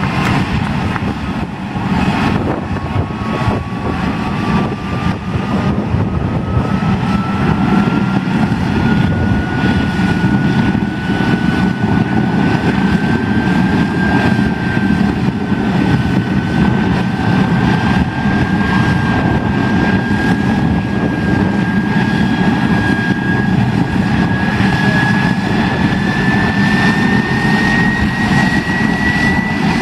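A jet truck's jet engine runs at high power, blasting a car with its exhaust. It makes a loud, steady rush of noise, with a turbine whine that slowly climbs in pitch.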